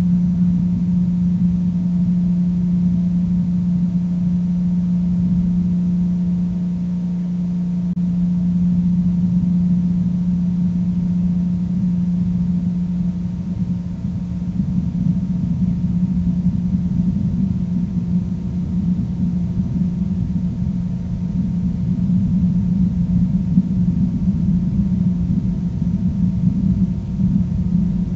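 A steady low-pitched drone, one unbroken hum with fainter overtones above it, over a rumbling low noise.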